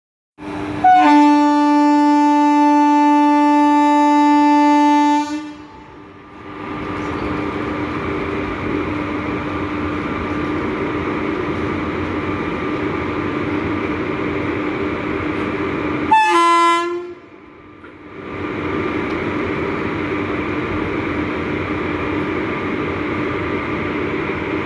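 WAP4 electric locomotive's horn sounding one long, loud blast of about four seconds, then a steady running noise from the train. A second, short honk comes about sixteen seconds in.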